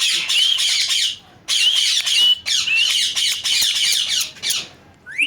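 Pet parrot screeching: harsh, rapid, high-pitched calls in two long bouts, with a short break a little after a second in, fading near the end.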